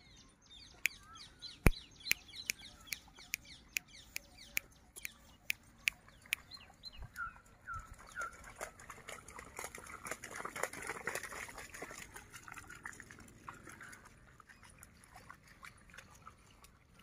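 Dog splashing through shallow floodwater in a grassy field. A run of sharp clicks, a few a second, comes in the first several seconds, then a longer stretch of splashing in the middle, fading near the end.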